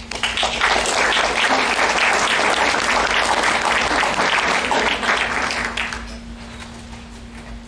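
Audience applauding, starting right away, holding strong for about six seconds and then dying away.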